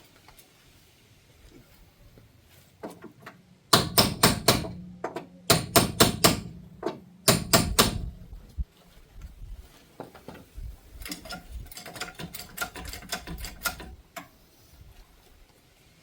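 Quick bursts of hard hammer strikes on metal, a few blows at a time with short pauses between, then a run of lighter, faster taps.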